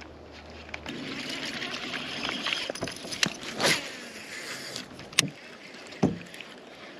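Sounds of fishing from a small boat: a low steady hum stops about a second in, then a few seconds of rushing noise and four sharp knocks or splashes, two of them loud, one near the middle and one near the end.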